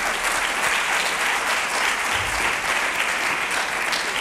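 Audience in a lecture hall applauding, many people clapping at once, steady throughout.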